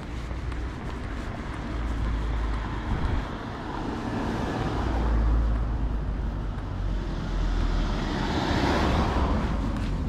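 A car driving past on the street, its noise swelling to a peak about nine seconds in and then fading, over a steady low rumble.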